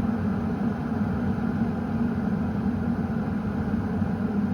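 Philips 1.7-litre electric glass kettle at a steady boil: a constant low bubbling rumble. It has come to the boil but has not yet switched itself off.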